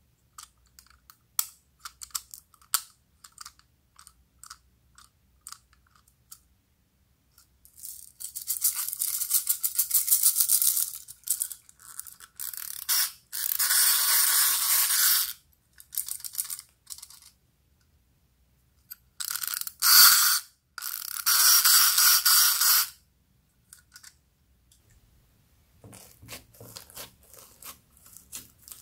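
Hard plastic toy handled over a dish of slime, with a run of light clicks, then four loud hissing, rustling bursts of one to three seconds each. Near the end there is quieter rustling and squishing.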